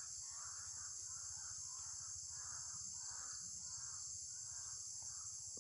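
Steady high-pitched drone of insects in tropical vegetation, with a softer call repeating about twice a second under it.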